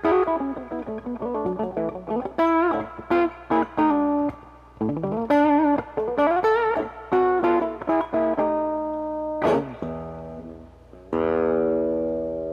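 Electric guitar played through a Mesa Boogie 5:25 Express 1x10 combo amp: a single-note lead phrase with string bends, vibrato and a slide up. About 11 seconds in, a chord is struck and left to ring out.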